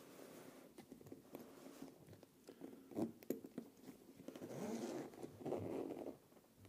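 Zipper on a DJI Mini 2 Fly More fabric shoulder bag being pulled open in two drawn-out strokes, starting about four and a half seconds in. A few light taps and knocks from handling the bag come about three seconds in.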